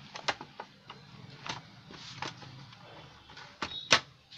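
A handful of irregular clicks and knocks as a metal set-top box is handled and shifted on a wooden bench, with the loudest knock near the end, over a faint low hum.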